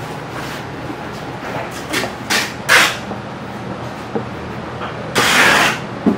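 Metal bench scraper chopping through a log of dough onto a wooden worktable: a few short knocks and scrapes about two to three seconds in, and a longer scrape about five seconds in, over a low steady hum.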